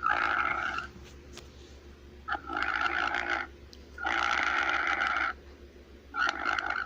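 A woman snoring loudly, about four rasping snores, each roughly a second long and coming about every two seconds, played back through a phone's speaker.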